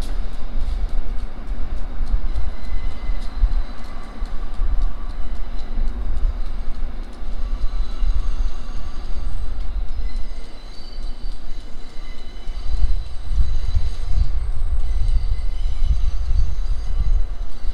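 Subway train rolling along the track: a steady low rumble with faint high squealing tones from the wheels.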